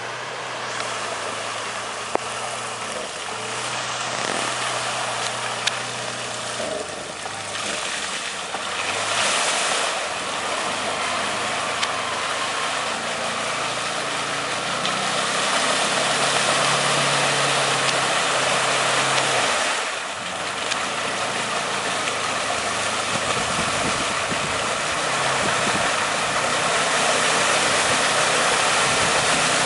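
Can-Am 1000's V-twin engine running, its pitch stepping up and down as the throttle is worked, with a couple of brief let-offs, over a heavy rushing noise.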